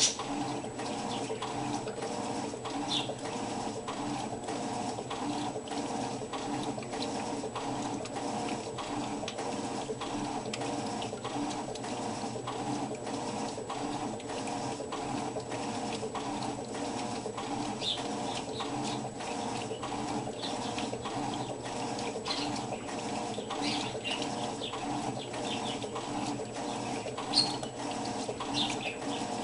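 Electrolux washing machine running: a steady hum with a regular ticking about twice a second. A few short high squeaks or chirps come in during the second half.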